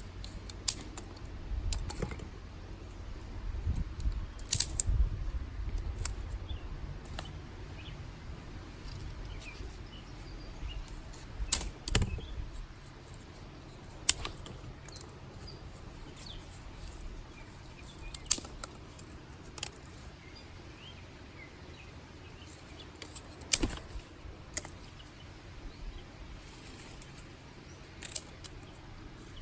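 Dry sticks snapped by hand, sharp cracks every few seconds, some in quick pairs, with birds chirping faintly in the background.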